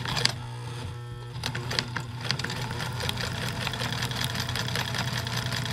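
Kenmore sewing machine sewing a multi-point stretch zigzag: the motor hums steadily, and the rapid ticking of the needle and feed mechanism gets going after about a second and a half. The microphone is taped against the machine, so it sounds close and loud.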